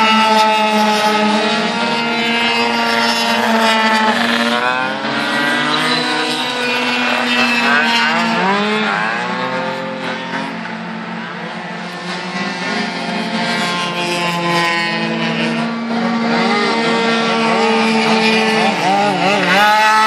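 Several racing scooters' small two-stroke engines at high revs, overlapping, their pitch rising and falling as the riders brake and accelerate through the corners and pass by. The sound fades somewhat about halfway through, then builds again.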